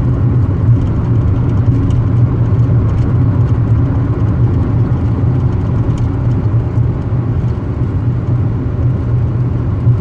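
Car cabin noise while driving through a road tunnel: a steady low drone of tyres and engine at cruising speed.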